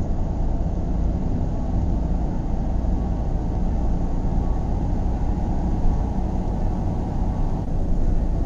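Steady low road rumble and wind noise of a Subaru Forester driving at highway speed, heard from the moving car.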